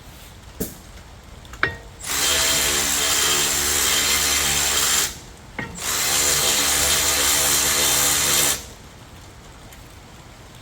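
Power tool motor running at a steady pitch in two bursts of about three seconds each, with a short pause between. A couple of light clicks come before the first burst.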